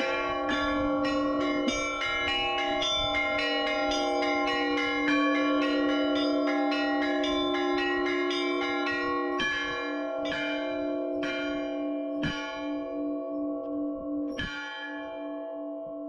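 Orthodox church bells ringing in the belfry. Smaller bells are struck in a fast, dense run over the long ringing tones of the larger bells. About halfway through this thins to single strokes roughly a second apart, and the peal winds down.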